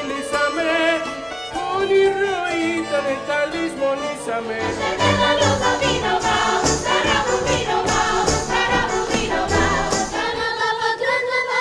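Live Greek and Turkish folk music on stage: a chorus singing with instrumental accompaniment. About four and a half seconds in, a steady beat of about two strokes a second comes in under the melody, for dancing.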